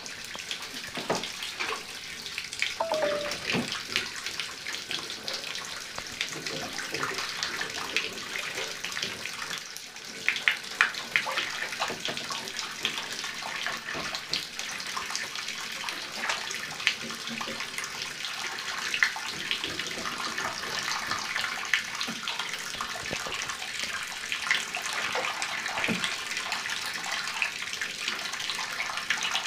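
Water running into a bathtub as a steady hiss, with scattered splashes and small clicks as a young raccoon plays in the shallow water. A brief squeak comes about three seconds in.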